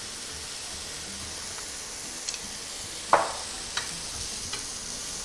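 Button mushrooms and curry powder sizzling in hot oil in a pan, a steady hiss, while a spatula stirs. The spatula knocks against the pan a few times, loudest just after three seconds in.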